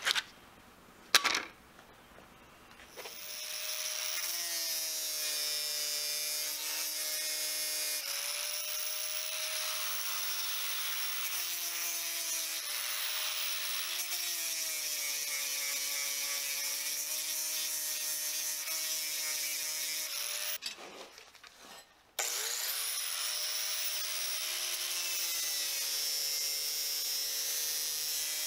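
Angle grinder with a thin cutoff wheel cutting a clamped steel plate. After a couple of sharp clicks it spins up about three seconds in and runs with a whine that wavers in pitch as the wheel bites. It cuts out about three-quarters of the way through and starts again a second or so later.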